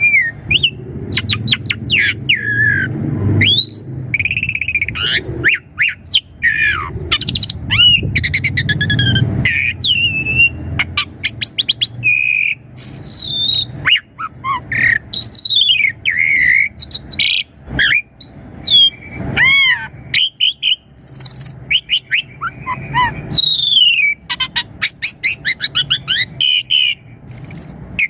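Asian pied starling singing a long, varied song: whistles gliding up and down, mixed with rapid clicking rattles and harsh notes, barely pausing. A low rumble sits under the first ten seconds or so.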